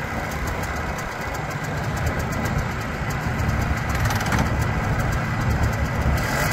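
1985 Polaris 250 ATV's single-cylinder two-stroke engine idling steadily, getting slightly louder near the end.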